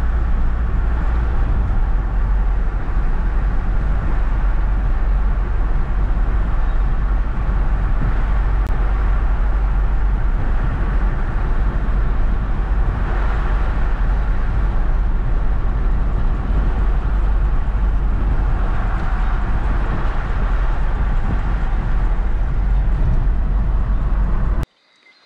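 Steady road and engine noise inside a moving car's cabin, a heavy low rumble. It cuts off suddenly near the end.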